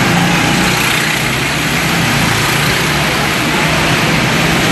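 Several go-kart engines running as karts lap an indoor track, a steady mechanical drone with no single engine standing out.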